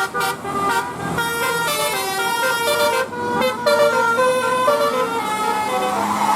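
Indonesian bus 'telolet' horn playing a quick tune of stepped notes, one held tone after another; near the end the tune stops and a rushing hiss rises.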